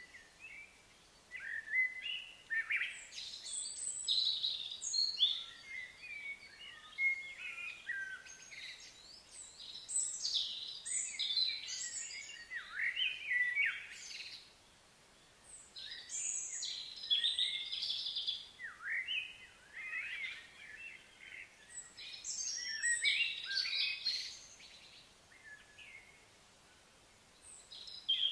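Several birds chirping and calling in clusters of quick, high, sweeping notes, with a lull about halfway through and another near the end.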